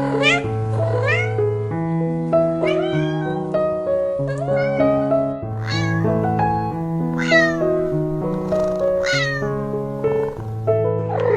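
Cat meowing repeatedly, short falling calls about once a second, over background music of steady held notes.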